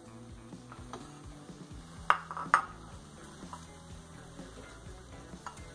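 Two sharp metallic clinks about half a second apart, a couple of seconds in: a cooking utensil knocked against the frying pan. Soft background music plays underneath.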